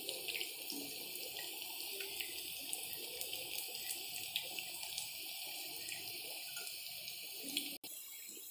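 Cabbage fritters deep-frying in hot oil: a steady sizzle dotted with many small crackles, cutting out for an instant near the end.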